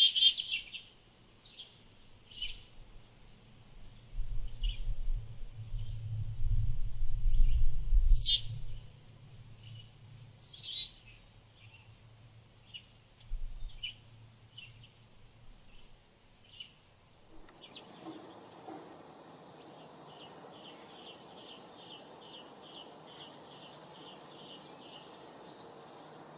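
Wild birds calling over an insect's high, evenly pulsed chirping. Loud falling calls come at the start, about 8 seconds in and about 11 seconds in, with short chirps between them, and a low rumble runs from about 4 to 9 seconds. About 17 seconds in the sound changes to a steady hiss with a fast, high trill.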